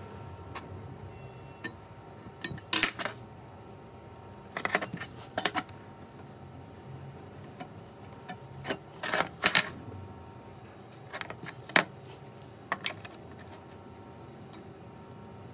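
Steel try square and square steel tubing clinking and tapping against each other and the wooden bench as they are set in place, in scattered short metallic clicks that come in small clusters.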